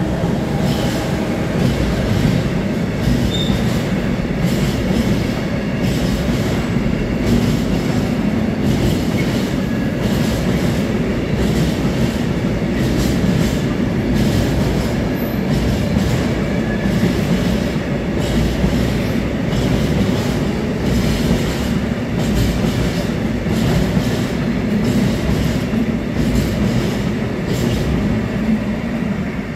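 Freight train of tank wagons rolling past: a steady rumble of steel wheels on the rails, with regular clicks as the wheelsets go by.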